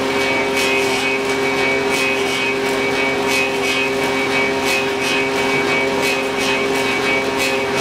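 Clog-copying lathe running steadily: its motor and belt drive hum while the cutters carve a wooden clog blank with a quick, even run of swishing strokes.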